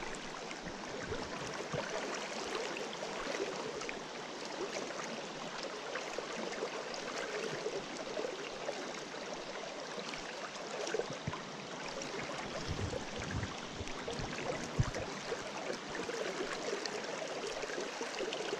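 Fast creek current rushing steadily, the stream running high after rain. A few soft low bumps come past the middle.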